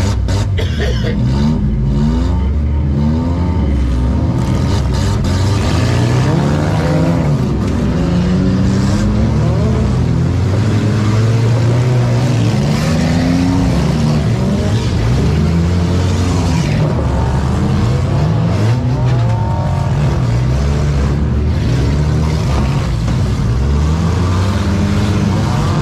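Compact demolition derby car engines revving up and down over and over as the cars push and ram, with a few sharp bangs of cars colliding.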